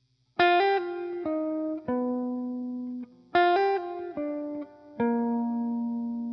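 Background music: a plucked guitar playing a short falling phrase of single notes, each note ringing on, heard twice.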